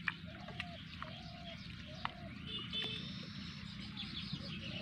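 Animal calls: short calls repeating about twice a second, then higher chirps in the second half.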